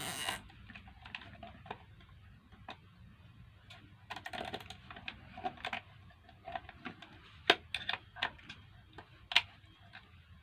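Irregular clicks and light knocks of blender parts being handled and pulled apart by hand, with a brief rustle at the start and a few sharper clicks late on.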